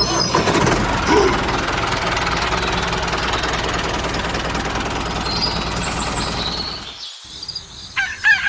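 A small motor-driven model machine running steadily, a noisy whirr with no clear pitch, that cuts off about seven seconds in. Just before the end a rooster starts to crow.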